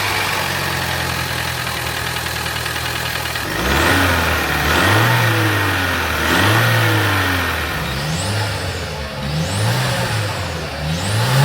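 Opel Zafira's 1.4-litre turbocharged four-cylinder (A14NET) idling steadily, then revved in a string of short blips from about three and a half seconds in. A rising turbo whistle comes with the revs, a little more whistle than there should be from the already-rebuilt turbocharger.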